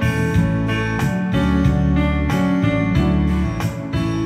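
Background music: guitar with steady, regularly plucked or strummed chords.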